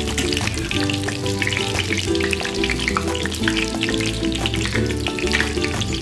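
Battered stuffed zucchini flowers frying in shallow oil in a pan, a steady crackle of popping oil, with background music of held chords underneath.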